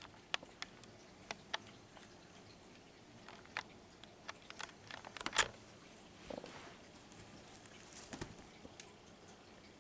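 Scattered light taps and rustles of a Bengal kitten pouncing on and batting a feather wand toy on a textured bedspread, with the loudest tap about halfway through.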